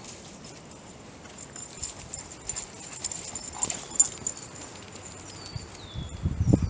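Footsteps crunching through dry fallen leaves, with scattered light ticks and rustles, as dogs play close by. Near the end comes a short low growl-like sound from one of the dogs.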